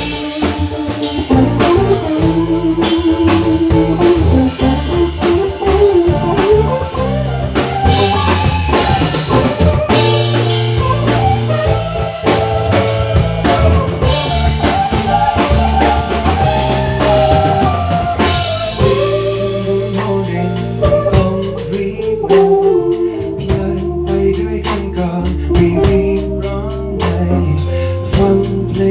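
Band music with drum kit, bass and guitar playing a melodic instrumental passage between sung lines of a pop song.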